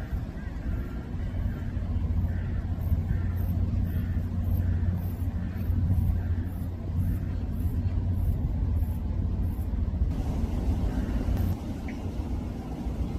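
Steady low outdoor rumble with faint, evenly repeated high chirps that stop about ten seconds in.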